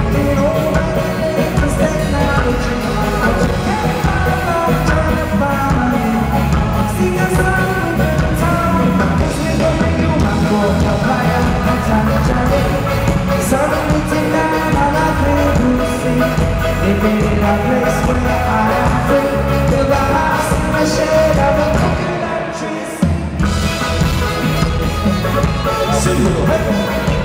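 Live reggae band playing: electric guitars, bass, drum kit and congas with a singer. About 22 seconds in, the bass and drums drop out for about a second, then come back in on a hit.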